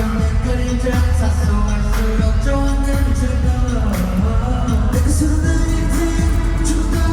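K-pop song performed live: a boy group singing over a pop backing track with a heavy, steady bass and beat, played loud through concert loudspeakers.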